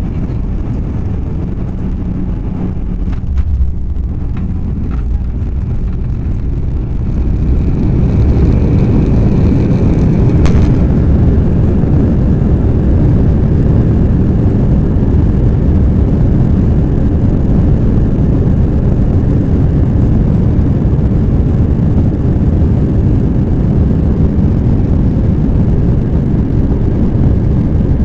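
Airbus A321 landing, heard from inside the cabin: a low rumble with a few sharp knocks as the wheels meet the runway, then about seven seconds in the noise swells into a much louder, steady rumble of the engines and the jet rolling out on the runway.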